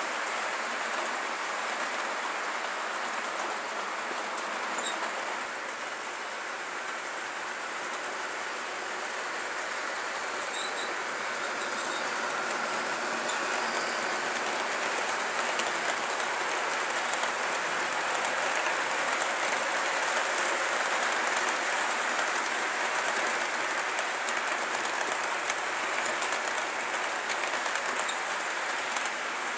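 OO/HO scale model trains running on the layout's track: a steady rolling hiss of small metal wheels on rail that swells a little in the second half, with light clicks over the rail joints near the end.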